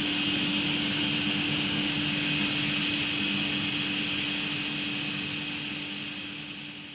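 Table saw running free with no wood on the blade, a steady hum at one pitch that fades away over the last couple of seconds.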